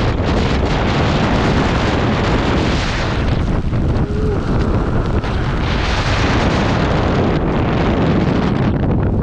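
Hurricane wind gusting hard over the microphone: a loud, continuous rushing roar with heavy low buffeting, easing briefly about four and five seconds in.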